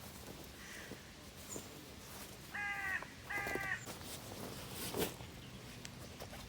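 A bird cawing twice, each harsh call about half a second long, with a single sharp click a little later.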